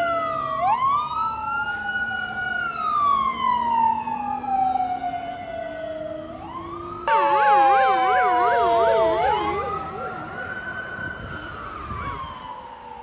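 Fire engine sirens wailing, several tones gliding slowly up and down over one another. About halfway a fast yelp cuts in for a couple of seconds, then the slow wail returns and fades toward the end.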